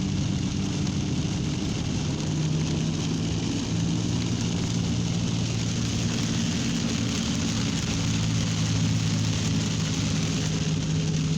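Steady low hum, like an idling engine or motor, under an even hiss of wind or light rain.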